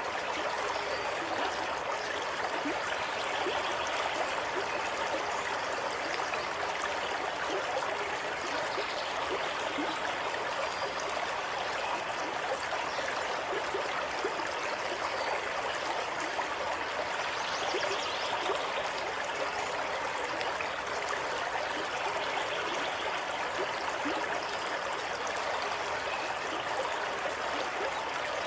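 Running water flowing steadily, an even rush with many small splashes and trickles through it.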